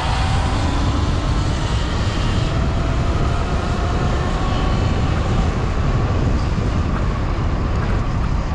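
Sur-Ron electric dirt bike motor running with a steady high whine, over heavy wind rumble on the microphone while riding.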